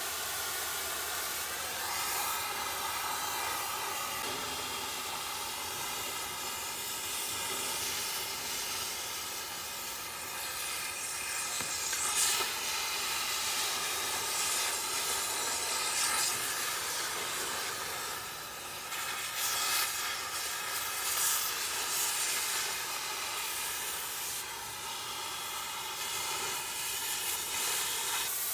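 Oxy-fuel cutting torch hissing steadily as it cuts through the steel frame of a soil screener, with a few brief louder crackles partway through.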